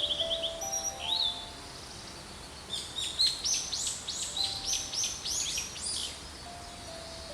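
Blue-and-white flycatcher singing: a short whistled trill at the start and a single note about a second in, then a fast run of high whistled notes from about three to six seconds in.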